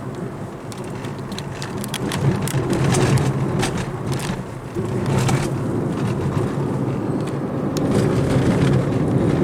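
Car driving on a rough dirt road, heard from inside the cabin: a steady low rumble of engine and tyres, with frequent knocks and rattles from the bumps.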